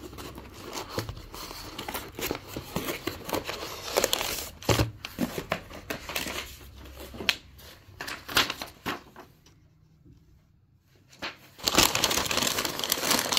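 Cardboard box being opened and brown kraft wrapping paper crinkling and rustling as the wrapped parcel is handled and unfolded. There is a short lull about two-thirds of the way through, then louder, continuous crumpling near the end.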